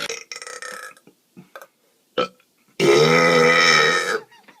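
A long, loud belch starting just under three seconds in and lasting about a second and a half, with a low pitch that sags slightly. Shorter, quieter sounds come before it.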